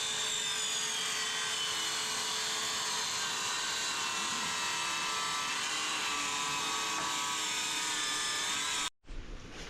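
A steady machine whir with a hissing noise and a faint whine that slowly falls in pitch, cutting off suddenly near the end.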